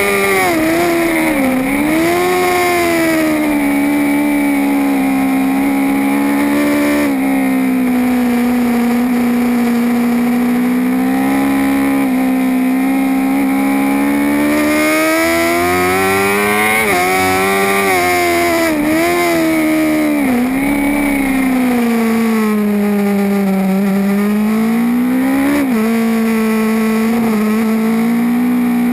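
BMW S1000RR superbike's inline-four, fitted with an Alpha Technik engine kit, at race pace on track: the engine note climbs and falls through the gears, with quick dips and climbs in the first few seconds, a long stretch held at a steady high pitch, then a rise followed by several sharp drops in pitch and a final climb.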